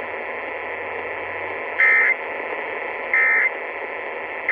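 NOAA Weather Radio sending the EAS end-of-message data code: three short, loud warbling data bursts about a second and a third apart, the third starting right at the end, over a steady hiss of radio static. The bursts mark the end of the alert broadcast.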